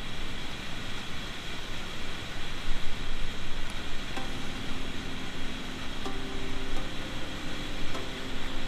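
Foaming white water churning below a river weir, a loud steady rush close around the kayak. From about four seconds in, background music with long held notes comes in over the water noise.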